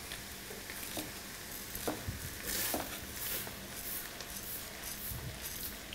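Pearl barley poured into a frying pan of hot bacon fat and onion, the fat sizzling steadily with a few light clicks. This is the toasting stage that seals the grains so they stay separate.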